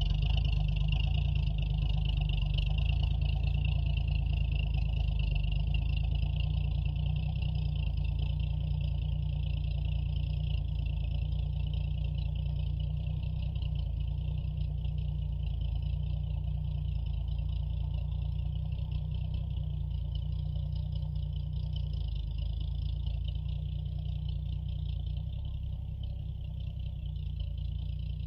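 1972 Toyota FJ40's 2F straight-six engine running steadily under load as it drags logs through snow, with a steady high whine above the low rumble. The sound slowly fades as the truck moves away.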